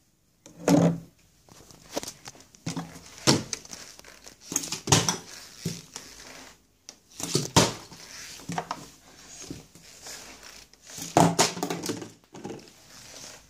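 Partly filled plastic water bottle being handled and flipped: irregular thuds and knocks as it is tossed and lands on hard surfaces, with crinkling of the thin plastic between them.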